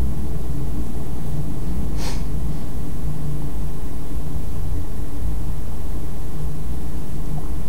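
Steady low rumble of background machine or room noise, with one short breath noise about two seconds in.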